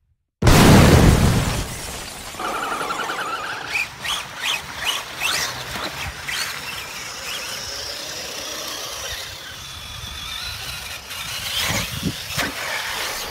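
A loud intro sound effect crashes in and fades over the first second or two. Then a 1/10-scale RC monster truck's electric motor whines, rising in pitch in several bursts as it is throttled through mud, with mud spraying and a few sharp knocks near the end.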